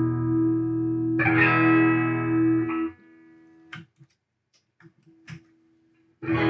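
Electric guitar played through a 1965 Fender Deluxe Reverb tube amp at low volume, sounding clean without crackle: a chord rings, is strummed again about a second in and is muted abruptly near the middle. A few faint clicks follow before another strum near the end.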